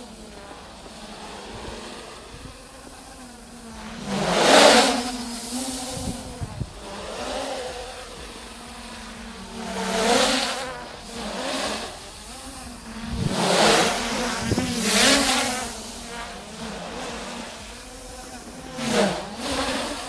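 Traxxas Aton quadcopter's motors and propellers buzzing in flight in sport mode. The pitch and loudness surge sharply several times as it is throttled through manoeuvres, the loudest surge about four to five seconds in.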